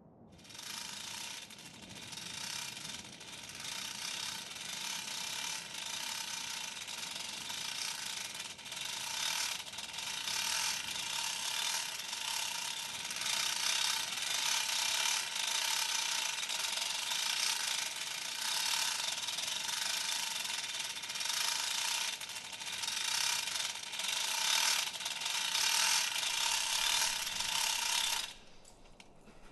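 Portable radio giving out a steady hiss of static with irregular crackles, no station coming through. It cuts off abruptly near the end.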